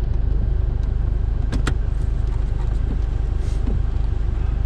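Subaru Impreza GC8's turbocharged flat-four engine running steadily at low revs, a constant low rumble. Two quick clicks come about a second and a half in.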